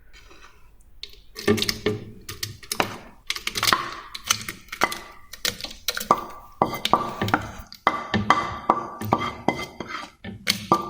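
Background music with a steady percussive beat and repeated bright notes, starting about a second and a half in.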